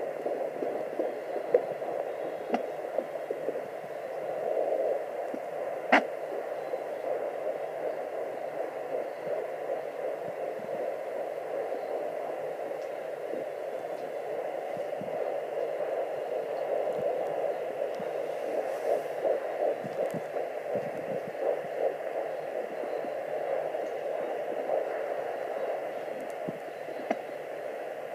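Sonoline B fetal Doppler speaker at 11 weeks 4 days, giving a continuous pulsing whoosh. It is dominated by a loud sound the uploader takes for an artery, with the fetal heartbeat popping in and out and sounds of the baby moving. A sharp click about six seconds in.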